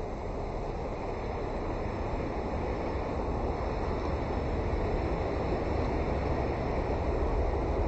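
Steady low rumbling noise that grows slowly louder.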